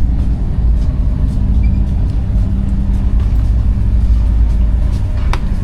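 Ferry engine droning steadily, a low hum with an unchanging pitch, with one sharp click about five seconds in.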